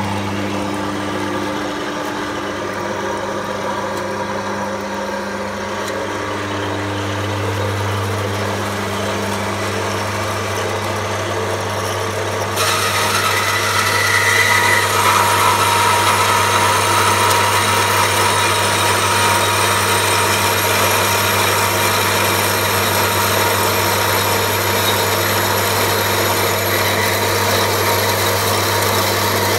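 Metal-cutting band saw with its electric motor running with a steady hum. About twelve seconds in the sound gets louder and harsher as the blade cuts into a 4 mm thick steel angle iron, and it keeps cutting steadily.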